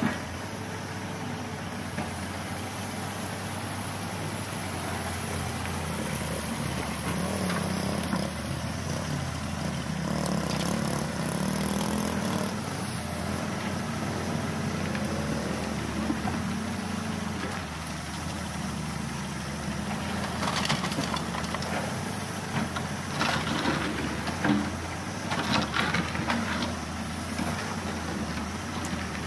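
Halla 130 wheel excavator's diesel engine running steadily and pulling harder for stretches as it digs. In the second half, the bucket clatters and scrapes against broken concrete and soil in a run of sharp knocks.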